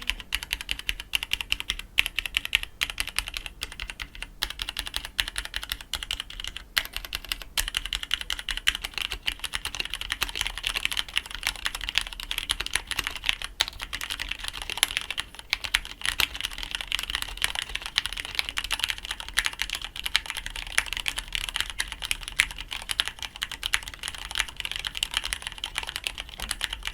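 Continuous fast typing on an ABKO AR87 mechanical keyboard fitted with AKKO Macaw PBT double-shot keycaps: a steady, dense clatter of keystrokes.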